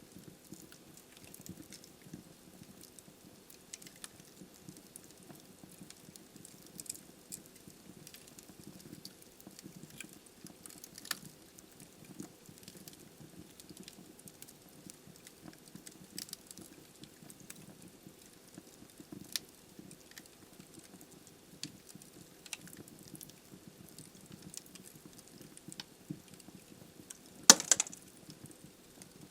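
Wood fire burning in a fireplace: burning logs crackling with scattered small snaps over a soft, steady flame rustle, and one loud pop near the end.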